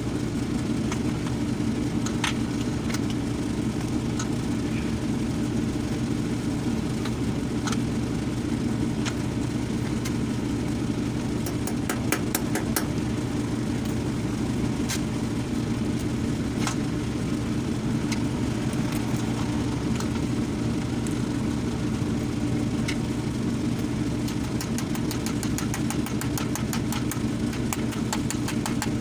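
A steady low engine hum, like an engine idling, runs throughout. Over it come scattered metallic clicks and taps of hand tools, with a fast run of clicks near the end like a ratchet being worked.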